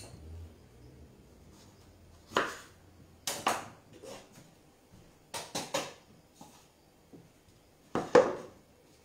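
Short knocks and clatters of kitchen items being handled and set down on a wooden worktop, among them a plastic citrus juicer, in clusters of one to four, the loudest near the end.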